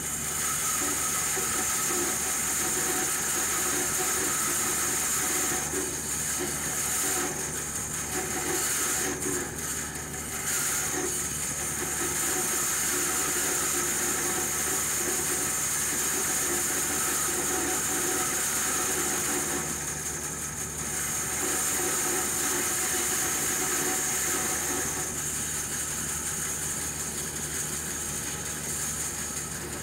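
Floor-standing band saw running and cutting lengthwise along a wooden board: a steady hiss over a motor hum, dipping briefly a few times.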